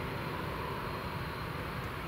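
Airbus A320-214's CFM56-5B jet engines running as the airliner rolls out along the runway after touchdown, heard as a steady, even rush.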